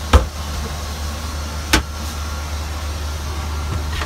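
Steady low drone of a Boeing 737-800 in cruise, heard inside its lavatory, with two sharp knocks about a second and a half apart as the plastic fold-down baby changing table is folded up.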